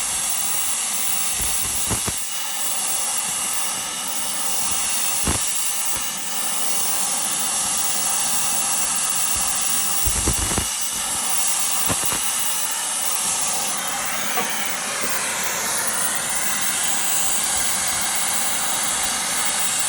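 Brazing torch flame hissing steadily against a copper refrigerant line joint on an air-conditioning compressor, with a few light taps.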